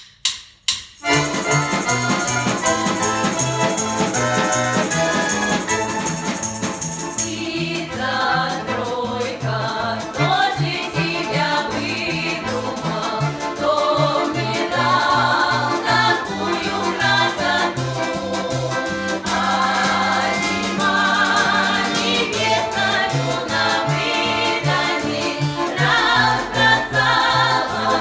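Russian folk ensemble performing a song: a few sharp clicks open it, then jingling percussion over a steady low rhythmic accompaniment, and a group of voices comes in singing about seven seconds in.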